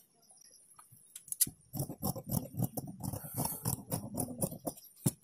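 Scissors cutting through folded fabric along the curved front armhole of a blouse piece: a few separate clicks and rustles, then from about two seconds in a quick, uneven run of snips, ending with one sharp click near the end.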